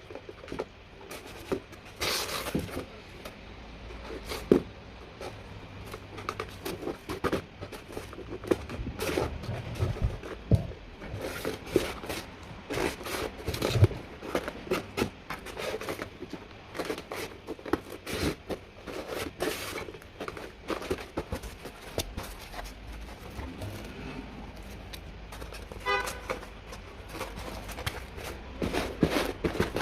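Irregular clicks, taps and knocks of parts and tools being handled, with a quick run of ticks about 26 seconds in.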